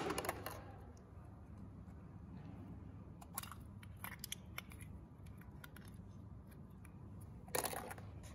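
Red plastic gacha capsule being handled and pulled open: a scatter of small plastic clicks about three to four and a half seconds in, then a louder crackle of handling near the end, over a faint low hum.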